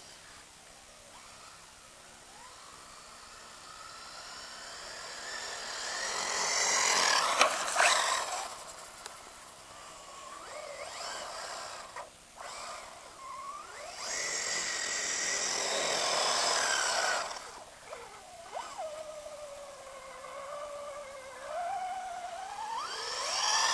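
Brushless electric motor of an electric-converted Protech Phaser RC buggy (1800kv motor on 4-cell LiPo) whining as the throttle is worked, its pitch rising and falling with speed, over the hiss of tyres churning through snow. It is loudest about a third of the way in and again past the middle.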